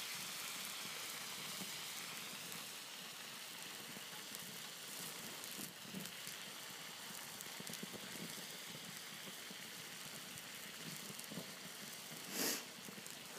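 Water boiling hard in a pan over a wood-pellet gasifier stove, a steady bubbling hiss with small crackles from the flames around it. A brief, louder hiss comes near the end.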